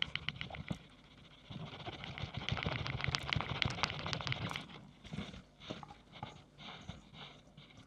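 Finely chopped boiled eggs tipped out of a tilted metal bowl onto a layered salad: a run of small clicks and scrapes, densest in the middle, thinning to scattered ticks near the end.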